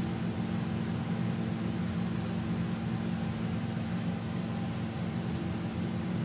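Steady low mechanical hum, with a few faint ticks about a second and a half in and again near the end.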